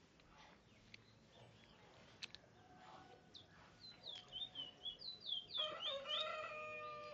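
Caged Trinidad bullfinch singing: a run of quick, high, falling whistled notes that starts about three seconds in and grows louder. Near the end a long, lower held call comes in under the last notes.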